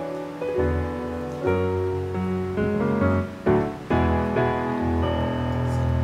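Background music: a gentle piano track with notes and chords changing every second or so over a low bass line.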